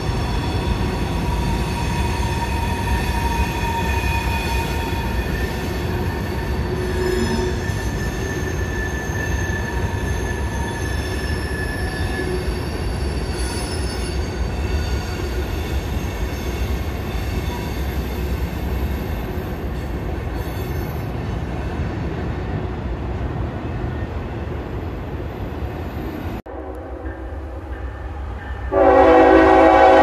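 Freight train cars rolling past with a steady low rumble and thin, high wheel squeals. Then, after an abrupt break, a diesel locomotive's air horn sounds loudly near the end, several notes at once.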